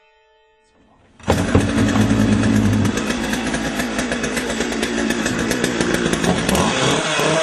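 Gas chainsaw engine bursting into loud running about a second in and carrying on steadily, its pitch shifting as the throttle changes.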